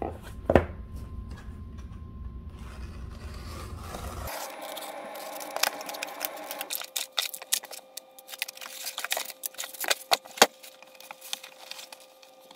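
Unboxing noises: cardboard packaging scraping and rustling, with a sharp knock about half a second in. Near the end come many short clicks and crinkles as a sheet of packing wrap is pulled off the switch.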